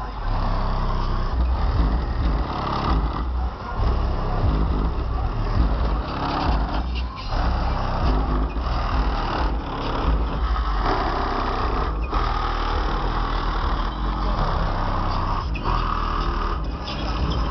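Trunk-mounted Pioneer subwoofers in a Buick playing heavy, pulsing bass at high volume.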